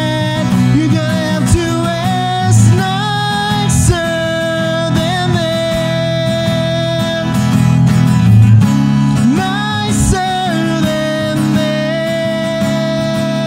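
A man singing with a strummed acoustic guitar in a live unplugged performance, holding long notes over steady chords.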